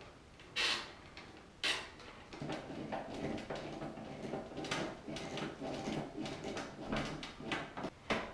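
Hands fitting a round flush-mount ceiling light fixture: two short, sharp scrapes about half a second and a second and a half in, then a busy run of small clicks, knocks and rattles as the metal and plastic parts are handled and fastened.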